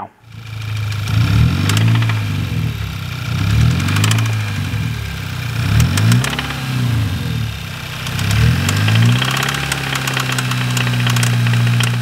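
VW MK6 GTI's 2.0T TSI four-cylinder engine running with rod knock: it is revved in several short blips with sharp knocks riding on the engine note, then settles to a steady idle near the end. The knock is play at a connecting rod, which the owner puts down to a failing rod bearing or a broken rod bolt.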